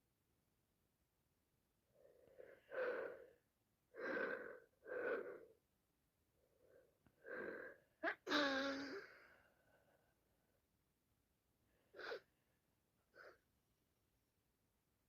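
A woman with sinusitis builds up to a sneeze with a series of catching, gasping inhales, then sneezes loudly with her voice in it about eight seconds in. Two short sniffs follow near the end.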